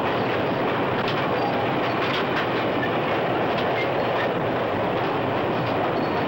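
Diesel-hauled freight train running at speed: a steady rumble of wheels on the rails with a few faint clicks from the rail joints.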